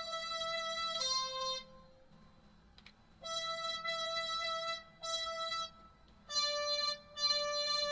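Roland Aerophone Mini digital wind instrument playing single held notes slowly and haltingly, with a pause of about a second and a half early on. It is a learner picking out a simple melody note by note.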